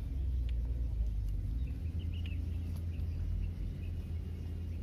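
Low, gusting rumble of wind buffeting the microphone, with a few faint bird chirps.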